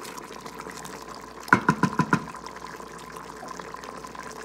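Instant Pot control panel beeping about five times in quick succession as its buttons are pressed to turn the heat down to low. Under it, the curry sauce simmers with a soft steady bubbling.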